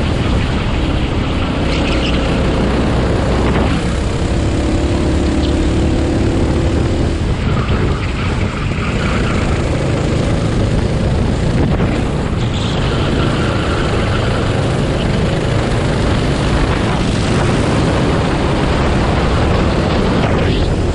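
Racing go-kart engine driven at race pace, its revs rising and falling as it accelerates and slows through the corners, with wind noise mixed in.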